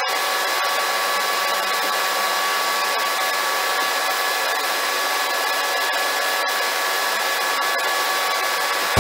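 A small electric power tool's motor running steadily with a high, even whir.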